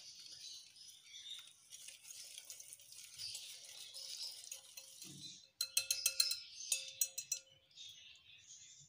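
Wire whisk beating a thick wet batter in a glass bowl, a steady scratchy swishing, then about five and a half seconds in a quick run of clinks as the whisk knocks against the ringing glass.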